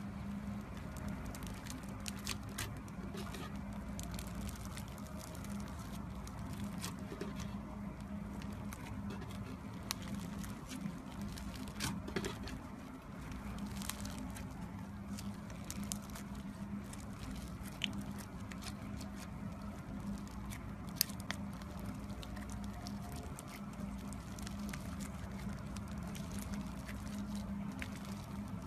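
Clear slime with blue foam clay and blue beads worked in, squeezed and kneaded by hand: many small crackles and clicks of foam beads popping, with soft squishing, over a steady low hum.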